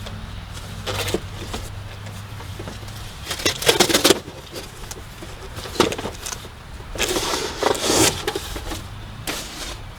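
Cardboard and plastic packaging rustling and scraping in several short bursts as a chainsaw is lifted out of its box.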